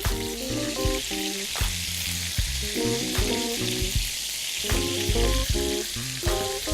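Shark and plantain kebabs sizzling in hot oil on the grill, a steady hiss, with background music playing over it.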